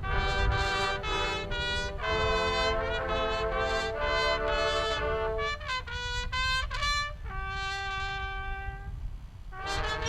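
Marching band brass section playing loud sustained chords, thinning to a single softer held note about seven seconds in, then coming back in with a full loud chord near the end.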